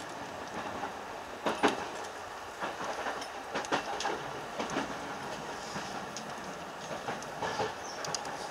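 JR East electric commuter train running on the rails, a steady rolling noise broken by irregular sharp clacks of the wheels passing over rail joints and points.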